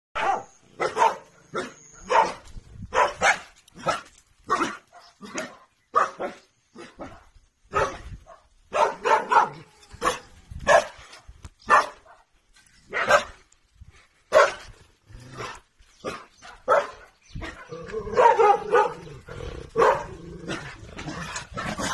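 Dog barking repeatedly: short, sharp barks one after another, about one or two a second, with a busier stretch near the end.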